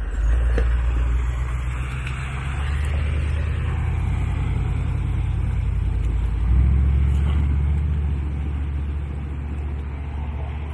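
Off-road vehicle's engine running with a low, steady rumble, rising in revs and getting louder about six and a half seconds in, then easing off a little.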